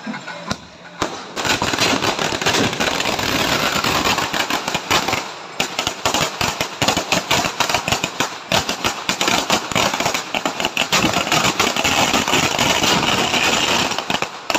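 A long string of firecrackers going off, rapid cracking bangs run together without a break, starting about a second in and cutting off suddenly near the end.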